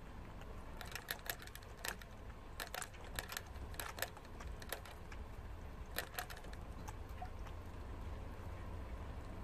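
Prairie dog drinking from a cage water bottle's metal sipper tube: irregular sharp clicks, like typing, as its mouth works the spout, coming in clusters through the first six seconds or so and then thinning out.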